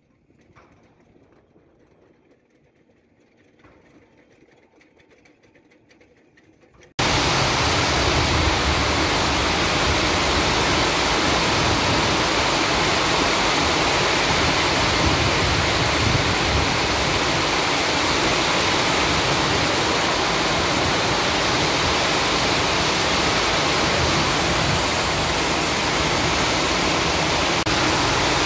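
Heavy tropical rain pouring down in a loud, steady, dense hiss, cutting in suddenly about seven seconds in after a few seconds of faint, quiet outdoor sound.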